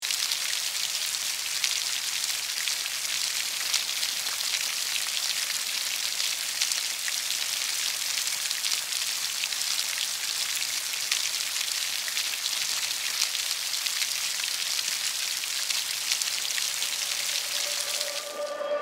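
Steady rain falling on a wet concrete porch and into a standing puddle: an even hiss sprinkled with many small, close drop splashes. Near the end the rain sound drops away and mallet-percussion music begins to come in.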